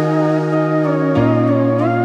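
Background music: a slow melody line that slides between held notes over sustained low chords, the chord changing about a second in.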